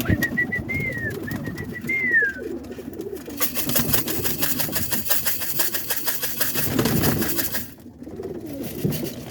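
Domestic roller pigeons cooing continuously in the loft. A thin whistling note sounds in the first couple of seconds, and a rustling hiss runs from about three to eight seconds in.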